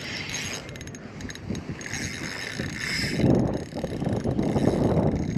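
Fishing reel being cranked, its handle and gears turning as line is wound in on a hooked fish.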